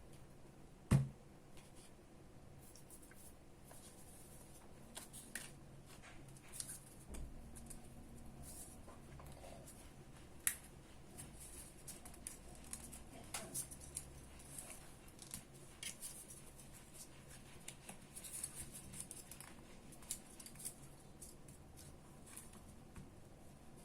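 Small handling sounds: scattered light clicks and rustles, with one sharp knock about a second in.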